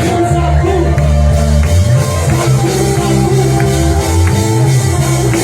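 Live worship band music: held bass notes and sustained chords changing every second or so, with light percussion strokes.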